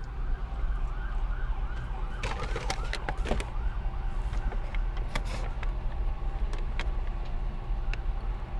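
A distant siren yelping, its pitch rising and falling about three times a second for the first few seconds, over a steady low hum inside a car. A few sharp crinkles and clicks of paper and a plastic cup being handled come about two to three seconds in and again about five seconds in.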